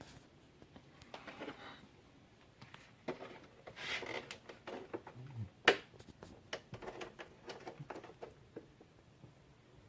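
Faint handling noises: scattered small clicks and rustles, with two soft breathy puffs, one about a second in and a longer one about four seconds in, and a sharp click near six seconds.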